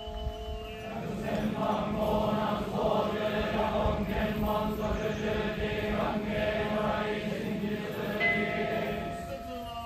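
Many men's voices chanting together in unison: a group of yamabushi mountain ascetics intoning a low, droning chant. It swells about a second in and fades out near the end.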